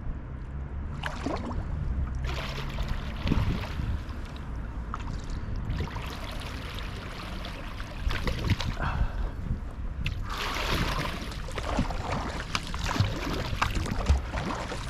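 Sea kayak paddle blades dipping and splashing, with water trickling and gurgling off the blades, in irregular washes over a steady low rumble.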